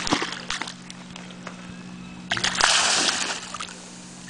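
Shallow seawater splashing as a stranded Humboldt squid is handled and shifted in the shallows: a few small splashes at the start, then a louder splash lasting about a second a little past the middle.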